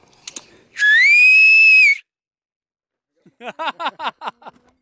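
A loud, shrill whistle that slides up in pitch and holds steady for about a second before cutting off. About a second and a half later, a quick run of short, rising vocal whoops follows.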